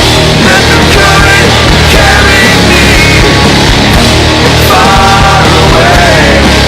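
Loud rock music with distorted guitars and a steady beat, with what may be a singing voice.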